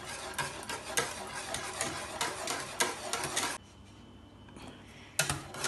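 Wire whisk beating thick custard in a saucepan, a fast run of scraping ticks as the wires hit the pan. The whisking stops about three and a half seconds in and starts again sharply near the end.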